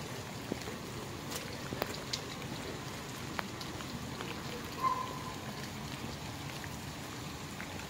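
Steady rain: an even hiss with scattered faint drop ticks. A brief high tone sounds about five seconds in.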